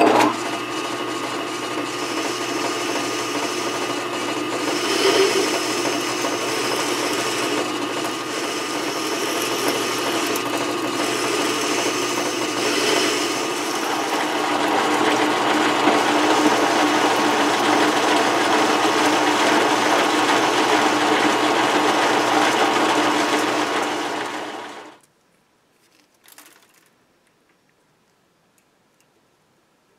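Metal lathe running with a steady mechanical whine while a boring bar opens up the bore in the spinning workpiece; the lathe shuts off about 25 seconds in.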